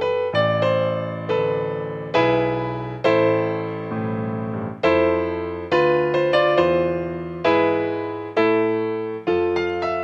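Piano playing a slow, gentle wedding processional: chords struck about once a second, each ringing and then fading.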